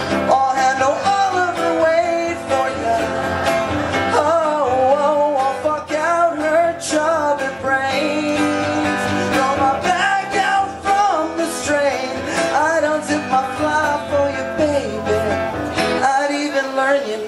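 Strummed acoustic guitar with a man singing over it, a live song at the microphone; the guitar stops near the end.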